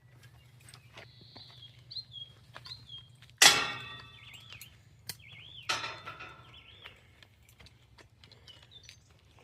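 Small birds chirping with short warbling calls, over a low steady hum. Two loud, sharp sounds cut in, about three and a half and nearly six seconds in, each ringing briefly before it fades.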